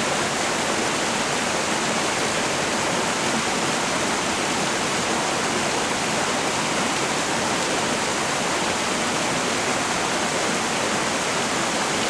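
Small stream spilling over a little cascade into a pool: steady rushing water at an even level.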